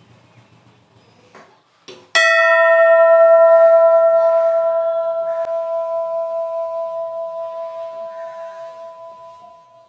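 Brass temple bell struck once by its clapper about two seconds in, then ringing out with a slowly wavering tone that fades away over about seven seconds.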